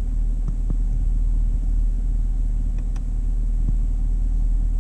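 2016 Camaro SS's 6.2-litre LT1 V8 idling steadily in track mode, heard from inside the cabin: a low, even rumble, with the NPP dual-mode exhaust's flaps expected to be open. A few faint clicks sound over it.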